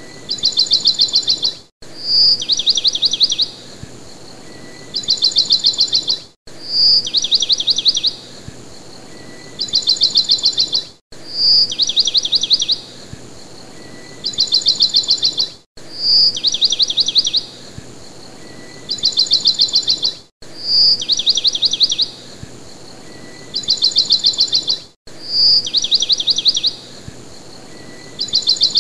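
Background track of bird chirping: a short bright note followed by rapid runs of high chirps. The same phrase repeats about every four and a half seconds, with a brief drop-out between repeats, as a looped recording.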